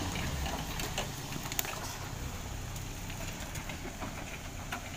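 Engine of a Nissan Terrano 4x4 running at low speed as it crawls through a muddy off-road rut, with a steady low rumble that eases a little after the first second and scattered short clicks and knocks.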